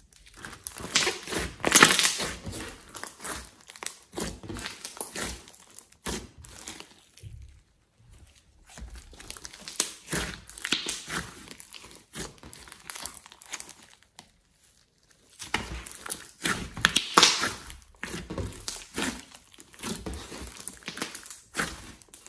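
Hands stretching, squeezing and pressing a large lump of glossy slime, making wet squishing and crackling sounds as the air pockets burst. It comes in three spells with short pauses between them.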